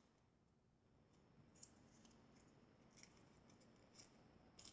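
Near silence, with a few faint, short clicks spread through it.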